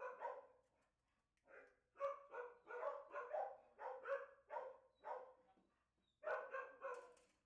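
Dogs barking repeatedly in a shelter's kennel area: runs of short, quick barks with a gap of about a second just past five seconds in, then more barking near the end. Faint.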